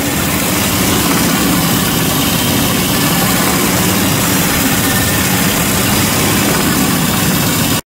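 Coil spring end grinding machine grinding the ends of steel suspension coil springs flat with an abrasive wheel: a steady, loud grinding hiss over a low machine hum. It cuts off suddenly near the end.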